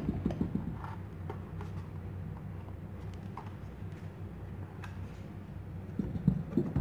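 Hard plastic knocks and clicks as the dust box is pushed onto a Parkside PBS 600 A1 belt sander and the tool is handled. One cluster of clicks comes at the start and another about six seconds in, over a steady low hum.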